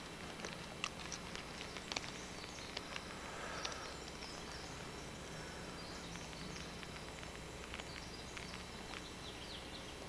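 Faint outdoor ambience at dawn: a steady low hiss with scattered small clicks and ticks, and a few faint bird chirps, about a third of the way in and again near the end.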